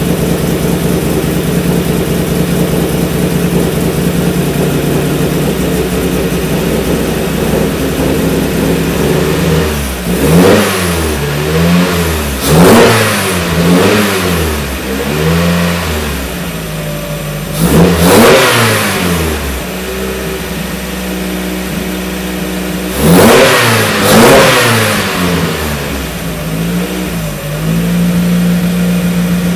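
2000 Mazda Miata (NB) four-cylinder engine, on Megasquirt fuel injection with EDIS-4 ignition and a 4-2-1 header, idling steadily, then blipped up and back down several times in three bursts before settling back to idle near the end. It is on its first run with a freshly roughed-in fuel map, just leaned out from running rich and starting to run better.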